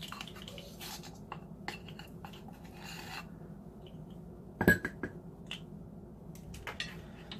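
Plastic measuring spoons on a ring clicking together, with scraping and tapping as a dry ingredient is scooped from a can and tipped into a ceramic mug of batter. A sharp knock comes about four and a half seconds in.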